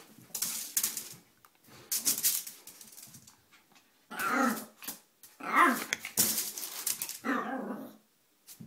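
Yorkshire terrier, a 4 lb toy dog, growling and yapping in a feisty play fit: noisy scuffles in the first couple of seconds, then several bouts of growl-barks from about four seconds in.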